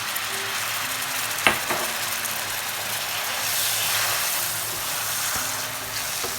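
Vinegar sizzling hard in hot oil over fried ginger, garlic, green chilli and curry leaves: a loud steady sizzle, with one sharp click about a second and a half in.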